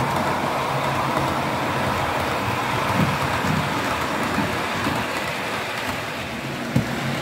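Model train running on the layout's track: a steady whirring rattle of motor and wheels on the rails, with a few sharp clicks as wheels cross rail joints.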